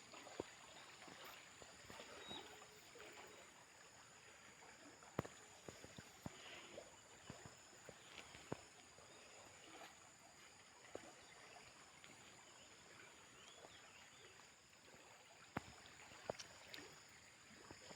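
Near silence: a faint steady hiss with a few scattered small clicks.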